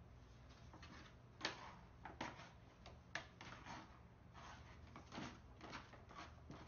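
A shopping bag rustling and crinkling in short, irregular bursts as a cat paws and tugs at it.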